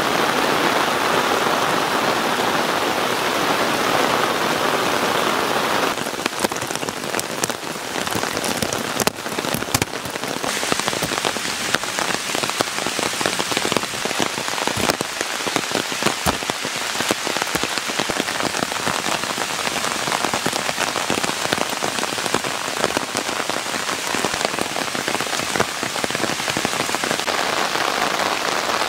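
Steady monsoon rain falling, a dense patter of many drops. Its tone changes abruptly about six and again about ten seconds in.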